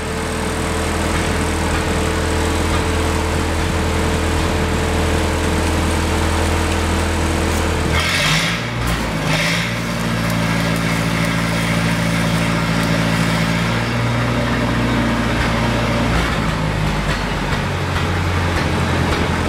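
Miller Big 40 welder-generator's Continental gasoline engine idling steadily, then about eight seconds in a stick-welding arc is struck with a short crackling burst and the engine speeds up under the welding load. It drops back to idle near the end as the welding stops.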